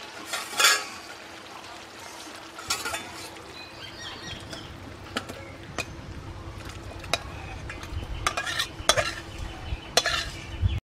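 Metal spatula scraping and clinking against a metal cooking pot as thick chicken curry is tipped and scraped out into a serving bowl: scattered scrapes and clinks, the loudest about a second in and again near the end, over a faint steady hum.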